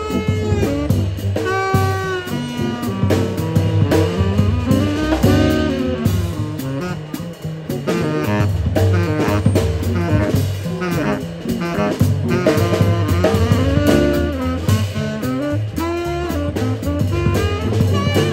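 Small jazz combo playing live: saxophone melody lines over upright bass and drum kit, with drum and cymbal strokes thickening about halfway through.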